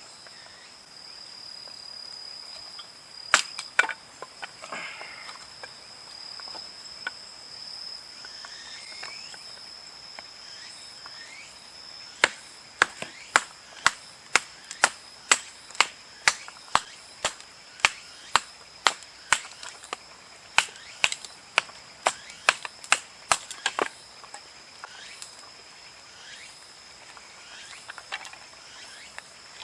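Insects, likely crickets, trilling steadily at a high pitch. Two sharp knocks come a few seconds in, then a long run of sharp knocks at about two a second through the middle, the loudest sound.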